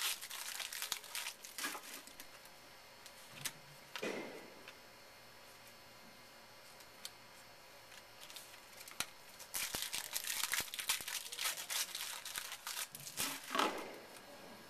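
Trading-card pack wrappers being torn open and crumpled by hand: crinkling at the start, a quieter stretch, then a longer, denser bout of crinkling from about two-thirds of the way through until near the end.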